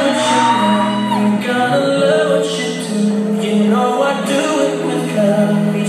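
A song with a singing voice plays continuously, with long held notes and a few sliding ones over the backing.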